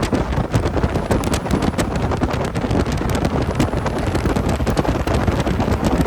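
Logging truck on the move: a steady low rumble of engine and road noise, with frequent small rattles and ticks.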